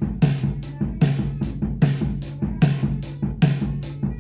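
Drum kit recording playing back a steady beat of kick, snare and cymbals from close mics and stereo overheads. The overheads are super compressed: ratio cranked up, gain all the way up and a fast attack squashing the hits down.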